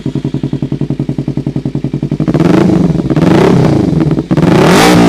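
Kawasaki Ninja 300 parallel-twin engine, just started, running through an SC Project slip-on muffler on a de-cat bend pipe with no dB killer. It idles with an even pulsing beat for about two seconds, then is revved in several throttle blips. The highest blip comes near the end.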